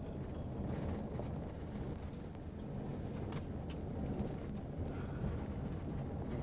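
Cabin noise of a vehicle driving on a dirt road: a steady low rumble of tyres and suspension over the rough, gravelly surface, with a few sharp ticks, typical of stones or rattles.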